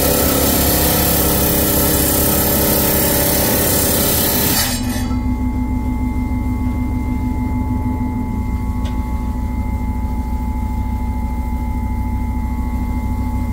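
10-inch Highland Park lapidary slab saw's diamond blade cutting through a thunderegg: a loud, steady grinding hiss. About four and a half seconds in the blade breaks through and the hiss stops suddenly, leaving the saw running free with a steady hum and whine.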